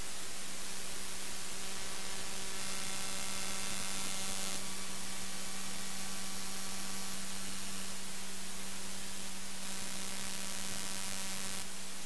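Raw I/Q data from the Sentinel-1 C-band radar satellite played as audio: a steady static hiss with a constant low hum. Twice it is joined for a few seconds by a buzzing stack of evenly spaced tones, about two seconds in and again from about seven seconds to near the end. This is interference from Russian air defence radar picked up by the satellite's receiver.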